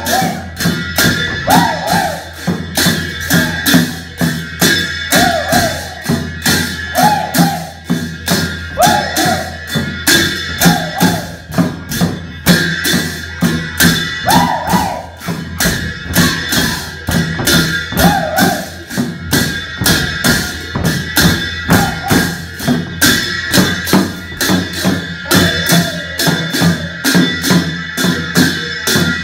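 Live folk dance music: a hand-beaten barrel drum and other percussion keeping a fast, steady beat, with a short pitched figure repeating every second or two over a held higher tone.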